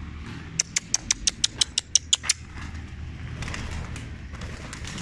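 A quick, even run of about a dozen sharp wing claps, roughly eight a second, as pigeons flap out of the loft; it stops after about two seconds.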